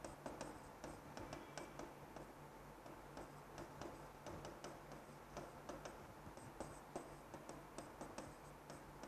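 Near silence with faint, irregularly spaced light clicks or taps, several a second, over a low steady room hum.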